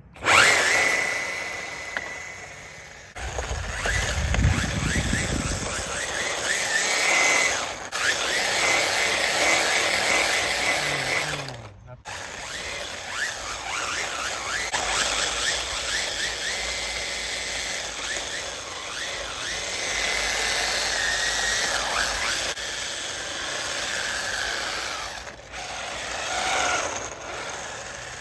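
Brushless electric motor of a 1/16-scale RC drift car whining, rising and falling in pitch as the throttle is worked while the car drives and drifts on asphalt. The sound cuts off abruptly twice, about 3 and 12 seconds in.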